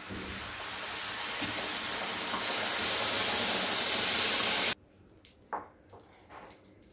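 Hot water poured into a hot pan of roasted ragi flour, semolina and vegetables, giving a steady sizzling hiss that grows louder and cuts off suddenly about two-thirds of the way through. A few faint, soft stirring sounds from a wooden spatula in the wet mixture follow.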